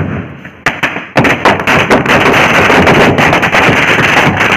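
Firecrackers going off in a fire: a few separate sharp bangs in the first second, then from about a second in a dense, continuous rattle of rapid cracks.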